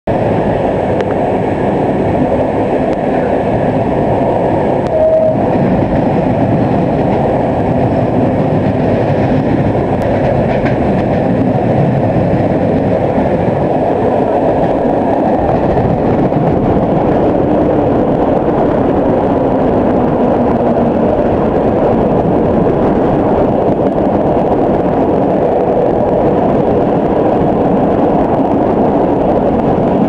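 Passenger train running along the line, heard from an open carriage window: a loud, steady rumble of wheels on the rails mixed with rushing air, with a brief squeal about five seconds in.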